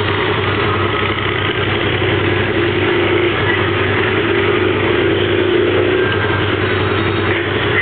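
Mirage 150 motorcycle engine idling steadily, its pitch lifting slightly in the middle.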